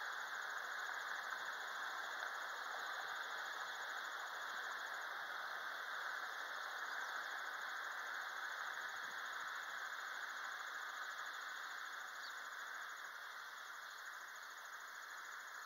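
Steady outdoor ambience: an even hiss, with a faint, high, fast-pulsing trill above it, easing off slightly near the end.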